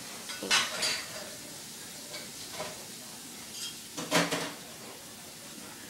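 A cat scuffling with a black flat shoe on carpet: its paws, claws and kicking hind legs scrape and knock the shoe in a few short bursts, the two loudest about half a second and four seconds in.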